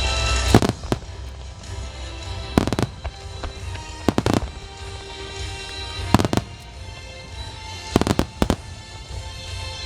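Fireworks shells bursting overhead in five groups of sharp bangs, about every two seconds, over steady music.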